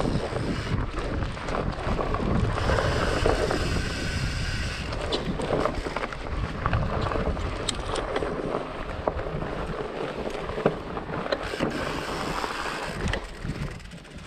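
Trek Farley 9.6 fatbike riding a dirt forest trail: fat tyres rolling over the ground with wind rushing over the microphone and small knocks and rattles from the bike over bumps. It grows quieter near the end.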